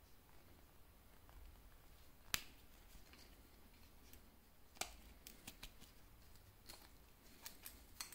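Clicks and snaps from handling a Timex Expedition digital watch, its resin strap, buckle and plastic tag. There is one sharp snap about two seconds in, another a little before five seconds, then a run of lighter clicks and taps.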